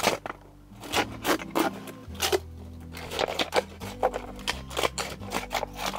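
Scissors cutting through a plastic PET water bottle: a run of sharp snips and crackles of the thin plastic, over faint background music with steady low notes.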